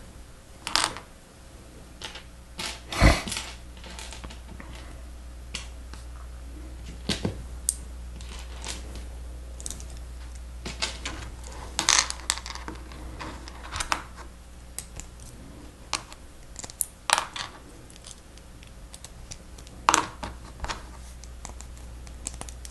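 Lego Technic pieces clicking and rattling as they are handled and snapped together: scattered sharp plastic clicks and short rattles, the loudest about three seconds in, over a low steady hum.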